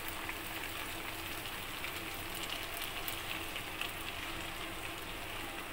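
Sliced vegetables and chicken sizzling in hot oil in a frying pan: a steady crackling hiss with scattered small pops.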